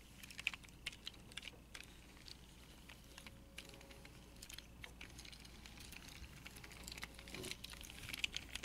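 Plastic wheels of a Hot Wheels toy truck and trailer rolled back and forth on carpet by hand: faint scattered clicks and light rustling, a little louder near the end. The wheels make no squeak, so they roll freely.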